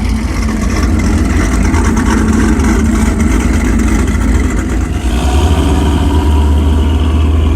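Cammed Pontiac G8 GT's 6.0 L V8 running loudly through an aftermarket exhaust, a deep steady rumble that gets a little louder about five seconds in.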